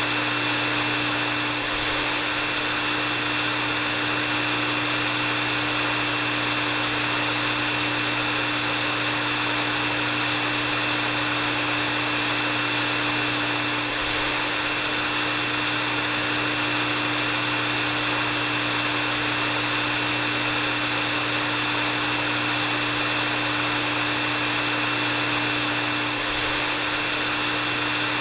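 Hair dryer running steadily: an even rush of blown air with a steady high whine and a low hum from the motor, unchanging throughout.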